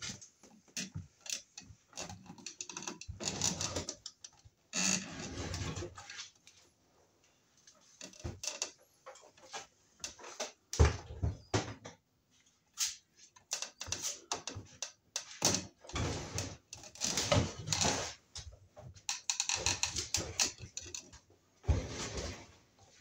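Handling and stripping of nonmetallic-sheathed electrical cable with a small hand tool: irregular rustling, scraping and clicking in short bursts, with brief pauses between them.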